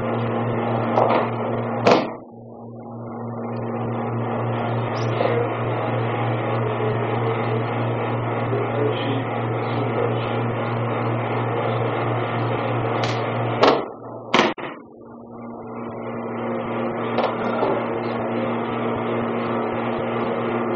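Steady electrical hum under room hiss on an old video soundtrack. Sharp knocks come about two seconds in and twice in quick succession around fourteen seconds; after each, the background hiss drops away and slowly swells back.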